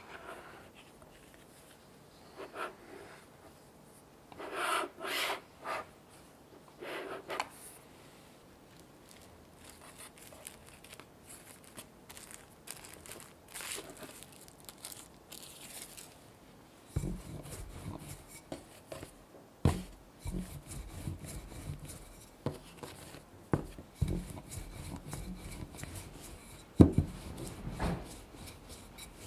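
A plastic bench scraper trimming pastry dough against the rim of a pie pan, in a few short scrapes; then cling film rustling as it is stretched over the pan. From about halfway, a wooden rolling pin rolls out pastry dough on a wooden board, a low rumble with light knocks.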